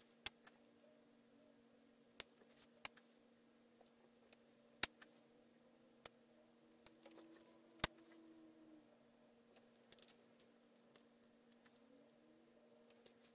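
Near silence with scattered faint clicks and taps, about a dozen spaced unevenly, as letter stickers are picked off a backing sheet with a pointed tool and pressed onto paper against a plastic ruler. A low steady hum lies underneath.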